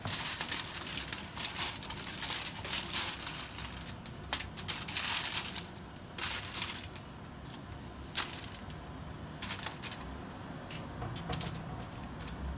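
Aluminium foil crinkling and rustling, with light clicks and taps, as hands handle and sprinkle chopped vegetables over a fish laid on the foil. The crackling is dense for the first half and thins to scattered clicks after about six seconds.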